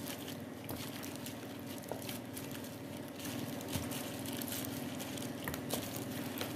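Faint, scattered squelches and clicks of a gloved hand turning small whole fish in marinade in a plastic basin, over a steady low hum.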